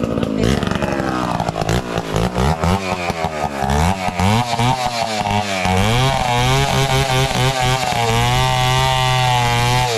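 A small petrol engine running loudly, its speed swinging up and down several times, then held steady at a high speed for the last four seconds or so.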